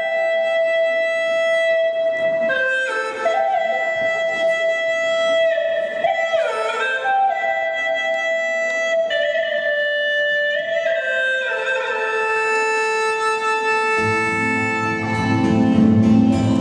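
Recorded backing-track music: a slow melody on a flute-like instrument, held notes sliding from one pitch to the next. A deeper accompaniment comes in near the end.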